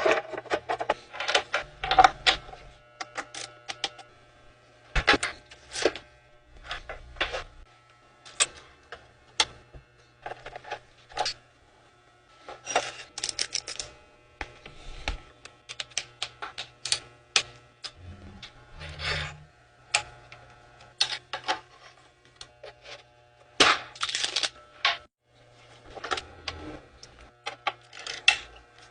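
Packaging being handled and opened during a bicycle unboxing: a run of irregular clicks, rustles and knocks, some loud and sharp, with short pauses between them.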